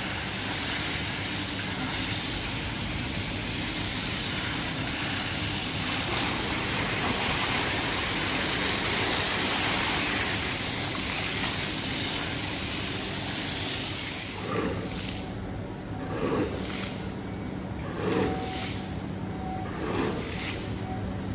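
Steady hiss of water spraying during a rug wash. About two-thirds of the way in it gives way to a series of separate strokes, one every second and a half to two seconds, over a steady low hum.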